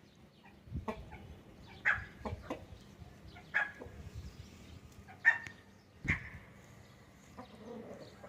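Java cockerels clucking: a handful of brief calls at irregular intervals, roughly one a second.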